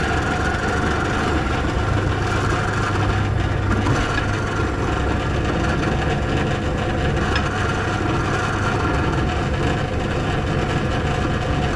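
Benchtop drill press motor running steadily, spinning a polishing pad loaded with polishing compound against a stainless steel flat bar, buffing it toward a mirror finish.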